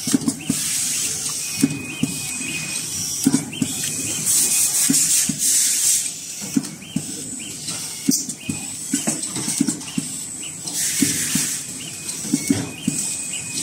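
Air-suction automatic screw-locking machine working: bursts of air hiss from the vacuum screw pickup, many short clicks and knocks from the moving screwdriver head and fixtures, and a few brief high-pitched tones.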